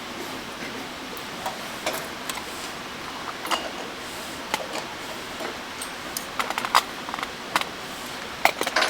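Irregular light clicks and taps of small metal watchmaking tools and parts being handled during movement assembly, over a steady hiss. They come in quick clusters, thickest in the second half.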